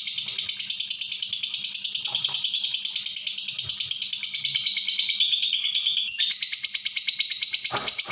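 Lovebird ngekek: a long, unbroken, high-pitched chattering trill made of very rapid rattling pulses, with a slight shift in pitch about six seconds in. This continuous trill without a pause is the prized long ngekek.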